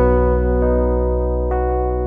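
Background music: sustained electric piano or keyboard chords over a steady bass, the notes changing twice.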